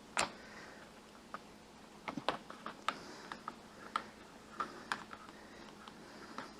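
Irregular small clicks and taps of plastic door parts being handled and fitted by hand: the handle and pins of a vinyl accordion folding door. The ticks come unevenly, about a dozen, the sharpest just after the start and around two seconds in.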